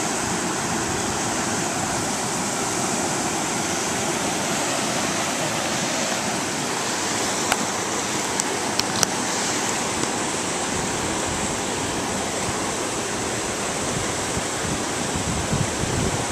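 River rapids rushing over rocks, a steady, even wash of water. A few small clicks about halfway through.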